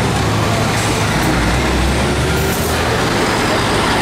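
Heavy truck diesel engines running steadily as yellow crane trucks drive slowly past close by.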